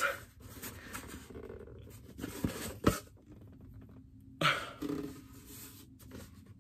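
Packaging from a shipped box being handled and rustled by hand, with a sharp click about three seconds in and a louder burst of rustling about four and a half seconds in.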